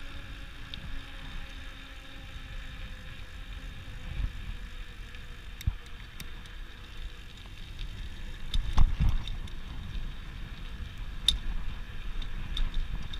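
Wind rumbling on the microphone of a moving bicycle, with tyre noise over cracked asphalt and scattered light clicks and rattles from the bike. The rumble swells to its loudest about nine seconds in.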